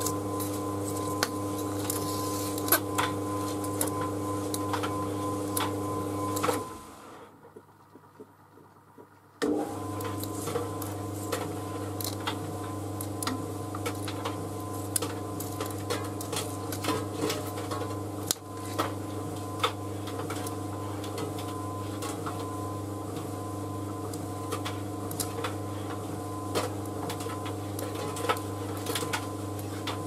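White Knight C38AW compact reversing tumble dryer running on its cool-down: a steady motor hum with frequent light clicks from the laundry tumbling in the drum. About six and a half seconds in, the motor stops for some three seconds and then starts again as the drum reverses direction.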